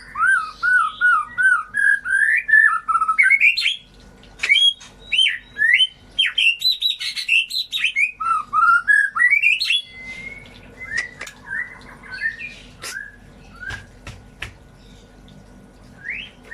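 White-rumped shama (murai batu) singing a fast run of varied whistled phrases that rise and fall, for about ten seconds, then breaking into sparser short calls and sharp clicks.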